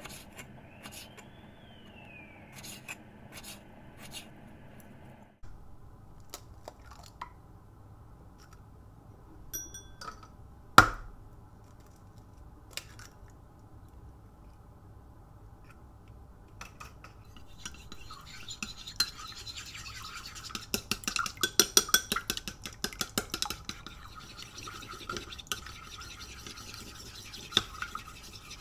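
A kitchen knife taps through yellow pickled radish onto a wooden cutting board in light clicks. About a third of the way in comes one sharp crack, an egg struck on the edge of a bowl. From a little past halfway, chopsticks beat the egg in the bowl with a fast run of clicking against its sides, busiest a few seconds later.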